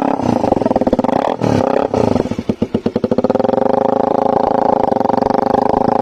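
Motorcycle with a loud modified exhaust running at high revs. It is choppy over the first three seconds, with several sharp dips and blips of the throttle, then holds steady.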